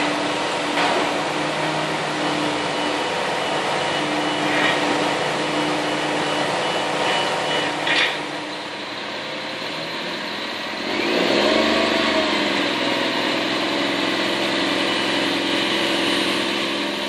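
Construction machinery engine running steadily, with a few sharp metallic knocks in the first half. About eleven seconds in it revs up, its pitch rising, then runs on louder.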